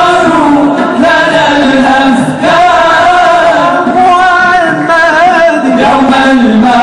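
Men's voices singing an Islamic devotional song (inshad), a sustained melody whose pitch bends and wavers in ornaments.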